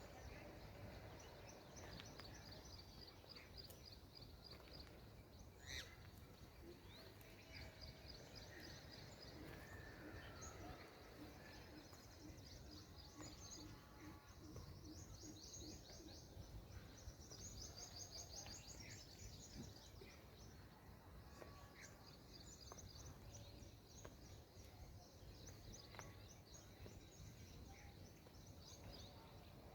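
Faint birdsong: small birds chirping in repeated short high trills throughout, over a low steady background hum.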